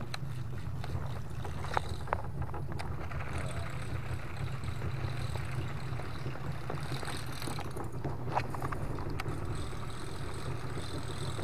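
Wooden river boat's engine idling with a steady low hum, with a few faint clicks.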